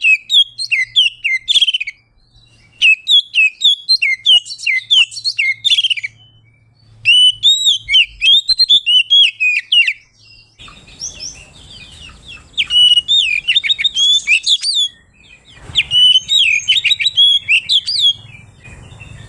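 Oriental magpie-robin (kacer) singing loudly in rapid bursts of looping chirps and whistles. Five phrases come with short pauses between them.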